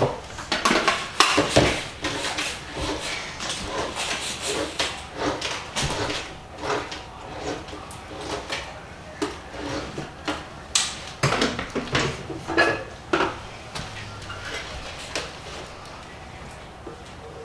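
Metal food can being opened with a can opener and handled at a kitchen counter: a string of irregular clicks, clanks and knocks of metal on metal and on the counter, dying down over the last few seconds.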